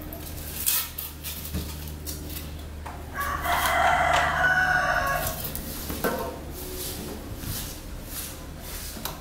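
A rooster crows once, about three seconds in, for roughly two seconds; it is the loudest sound. Under it runs a steady low hum from the newly assembled stand fan being tested, with a sharp click under a second in.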